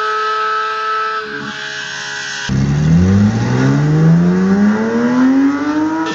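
Porsche 911 GT3 RS naturally aspirated flat-six engine at full throttle. It first holds a steady high pitch, then about two and a half seconds in an abrupt cut brings one long acceleration whose pitch climbs steadily for about three and a half seconds.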